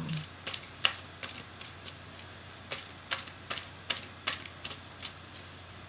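A deck of oracle cards being shuffled by hand, giving quick irregular card snaps and flutters, about three a second.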